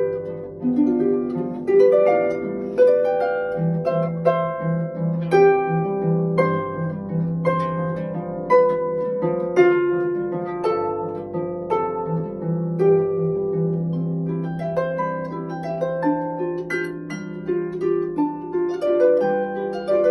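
Harp played solo: a steady run of plucked notes ringing and overlapping over sustained bass notes.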